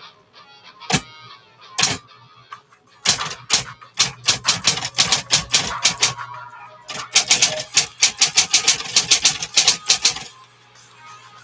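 A 1960s Smith Corona Coronet Electric 12 electric typewriter being typed on. There are a couple of single key strikes, then fast runs of keystrokes from about three seconds in, with a short pause in the middle, stopping shortly before the end.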